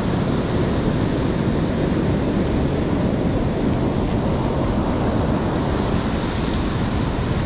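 Ocean surf breaking and washing up a sand beach: a steady rushing noise.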